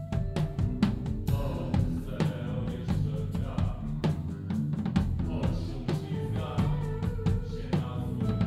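A live band playing, with the drum kit up front: a steady beat of kick drum and snare over bass and sustained instrument notes.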